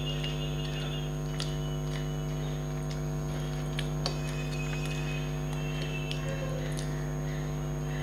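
A steady low electrical hum runs throughout. Over it are scattered small clicks and smacks of chicken being eaten by hand and chewed.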